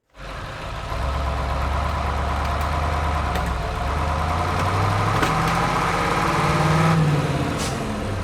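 An engine starts and runs, its pitch climbing from about five seconds in and dropping back near the end.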